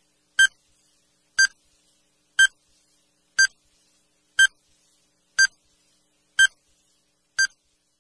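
Countdown timer sound effect beeping once a second: eight short, high electronic beeps with silence between them.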